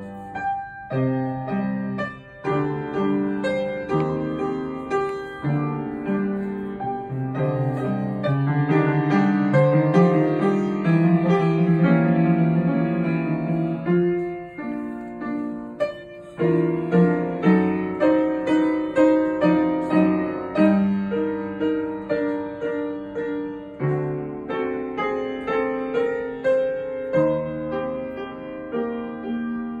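Upright piano played live: a slow, expressive piece of chords and melody that grows fuller and louder in the middle, drops away briefly a little after halfway, then carries on with evenly paced notes.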